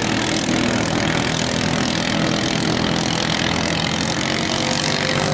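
Longtail race boat's 13.5 hp 405 cc single-cylinder engine, converted to run on LPG, running steadily at racing speed with an even drone.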